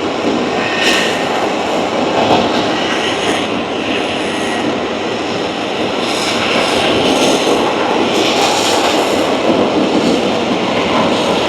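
Aircraft engine noise from an air show flying display: a loud, continuous sound that swells and eases as the aircraft passes.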